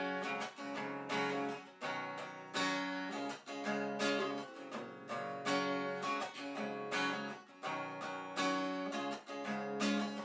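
Acoustic guitar strumming chords: an instrumental break between sung lines of a song.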